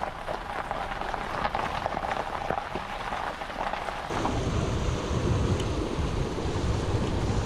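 A steady hiss with scattered light ticks. About four seconds in it changes abruptly to the fuller rushing of a shallow, rocky stream running over a riffle, with a low rumble of wind on the microphone.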